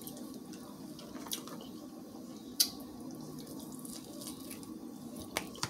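Close-up eating sounds as a breaded pork chop is bitten and chewed: three short sharp clicks, the loudest about halfway through, over a steady low hum.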